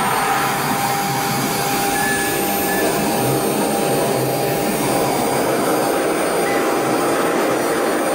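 CNC router's high-speed spindle motor running steadily under a running job: an even mechanical whine with a constant tone over a broad hiss.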